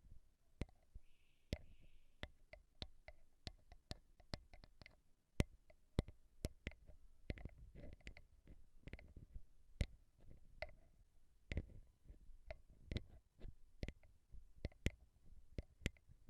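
Slow, irregular ASMR tapping on a microphone, about two to three sharp taps a second, many carrying a soft low thump.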